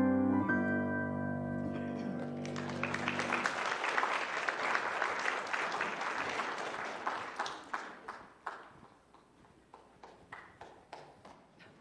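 The final chord of a grand piano rings and fades away. About two and a half seconds in, a congregation breaks into applause, which thins to a few scattered claps near the end.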